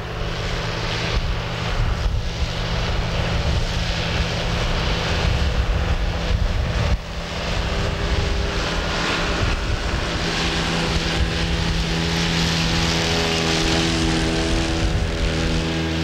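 John Deere tractor engine running steadily under load, pulling a trailed mower-conditioner whose cutting and conditioning gear adds a wide rushing whirr. Wind rumbles on the microphone in the first half; after a brief dip about seven seconds in, the steady engine and mower tones come through more clearly.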